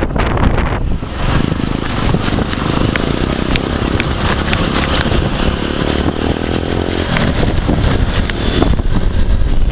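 Motorcycle running while riding along a dirt trail, engine and rumble loud and steady on the microphone, with scattered knocks.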